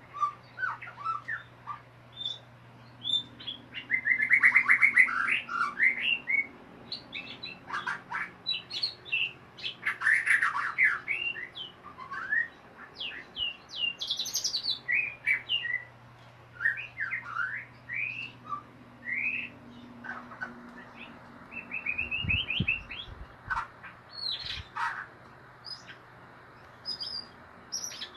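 White-rumped shama (murai batu) singing: a long run of short, quick whistled and chattering notes, the rapid 'ngeriwik' style of song, with dense bursts of fast twittering about four seconds in and again about ten seconds in. A faint low hum runs underneath for stretches, and a few low thumps come near the end.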